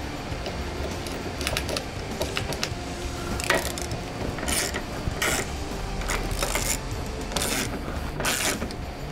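Hand ratchet wrench clicking in short repeated strokes, about one a second from a few seconds in, as it runs down 17 mm mounting bolts.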